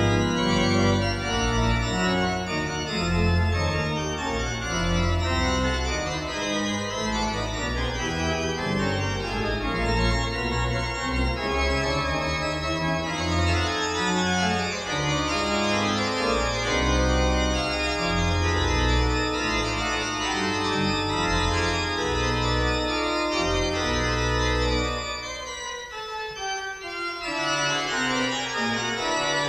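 Pipe organ playing a fast, busy fugal dance on a loud registration with deep pedal bass notes. About 25 seconds in the pedal bass drops away and the music thins and slows, then a lighter, quicker passage picks up near the end.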